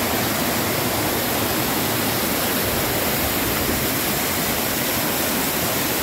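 Mountain waterfall pouring onto rocks close by: a loud, steady rush of water.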